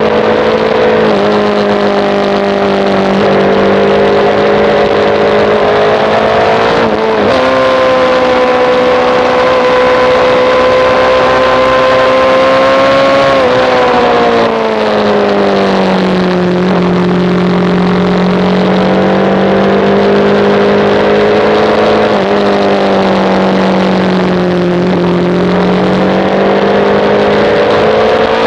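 Sportbike engine at high revs under way. The pitch climbs, dips sharply about seven seconds in, and holds high for several seconds. It then falls away in two stages and climbs again near the end.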